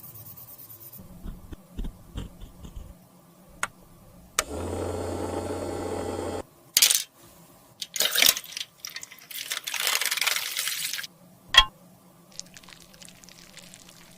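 Close-up handling noises from cosmetics repair work: light taps, then a steady hum for about two seconds, followed by several short hissy scraping bursts and a sharp click near the end.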